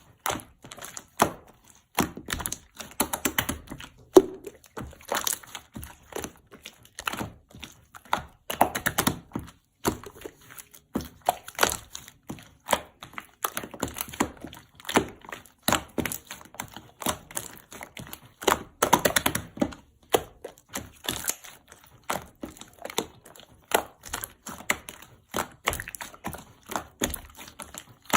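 Irregular clusters of short, sharp clicks and taps, hard objects being tapped or handled.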